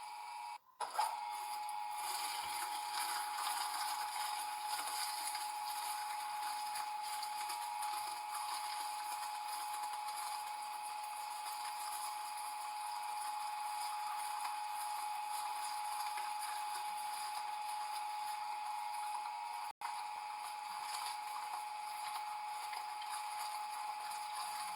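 A machine running with a steady high-pitched hum over a hiss, cutting out for an instant twice.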